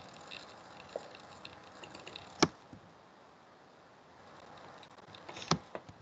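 Computer mouse clicking a few times over faint room noise: one sharp click about two and a half seconds in, and a small cluster of clicks near the end.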